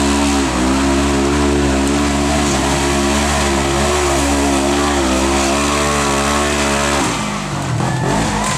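Side-by-side UTV engine running hard at a steady high pitch with slight dips as its spinning tyres dig up a steep dirt hill; about seven seconds in the engine note drops off abruptly as the machine tips over onto its side.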